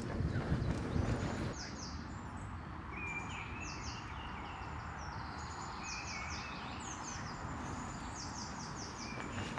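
Songbirds singing: short high chirps in quick runs of three to five, and lower warbled phrases, over a steady outdoor hiss. Footsteps on the trail in the first second or so.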